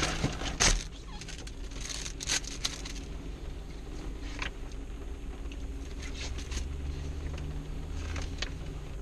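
Scattered clicks and taps of plastic forks against plastic takeaway trays and lids while food is eaten, with a louder knock under a second in, over a steady low hum inside a car.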